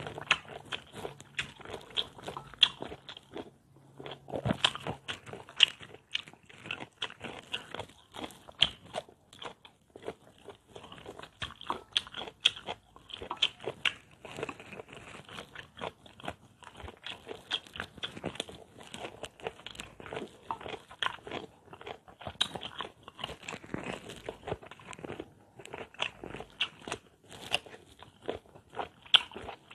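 A person biting and chewing mango slices with bagoong: a dense, uneven run of sharp crisp bites and wet mouth sounds.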